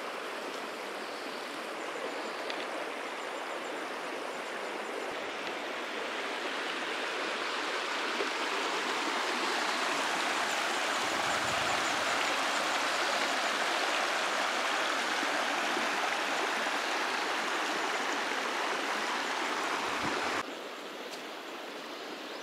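Shallow mountain river running over a pebbly riffle: a steady rushing of water that grows louder through the middle and drops abruptly to a quieter hush near the end.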